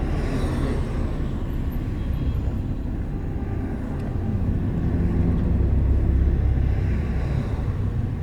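A bus running along the road, heard from inside the passenger cabin: a steady low engine and road rumble that grows somewhat louder about halfway through.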